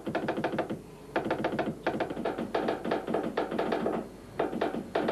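Morse telegraph key being keyed by hand: quick runs of sharp clicks in short bursts of under a second, separated by brief pauses, as Morse code is sent.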